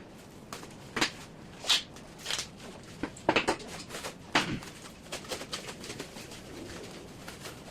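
Paintless dent repair rods and their packaging being handled and packed: an irregular series of knocks, clicks and rustles, louder in the first half and lighter after.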